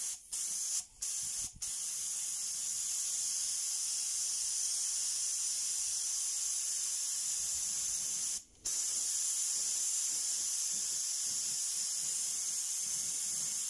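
Aerosol spray-paint can spraying in long steady hisses, with a few short breaks near the start and one more about eight seconds in where the nozzle is let go; black paint is going onto a knife handle whose blade is masked with tape.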